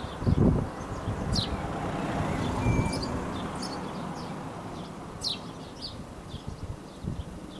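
A road vehicle passing, its steady tyre and engine noise swelling about two seconds in and slowly fading away, while small birds chirp over it. A brief low rumble comes at the start.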